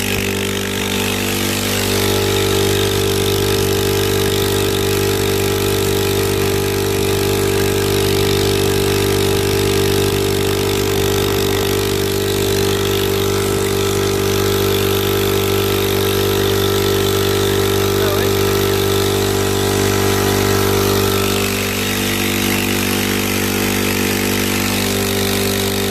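ALDI air compressor's piston pump running steadily with its tank line disconnected, pumping air freely without building pressure as it warms up on a freshly replaced head gasket. The tone shifts slightly about 21 seconds in.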